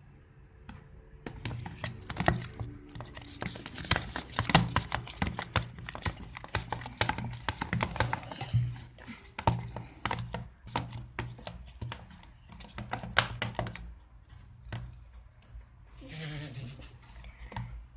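Slime being stirred with a spoon in a pot: a dense, irregular run of sticky clicks and squelches that starts about a second in. The slime is nearly set and is starting to come away from the sides of the pot.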